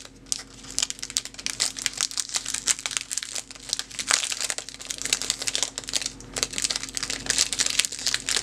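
Thin clear plastic packaging crinkling in the hands as it is worked open, a dense irregular run of small crackles.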